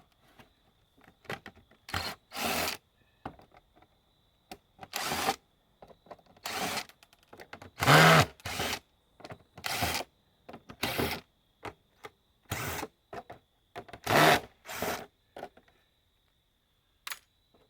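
A power drill driver running in short bursts, about a dozen times at uneven intervals, as screws are driven out of an electronic unit being dismantled for scrap.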